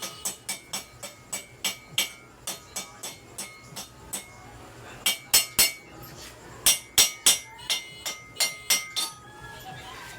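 A hammer striking metal repeatedly, each blow ringing; the strikes come about three a second, pause briefly partway through, then resume louder until near the end.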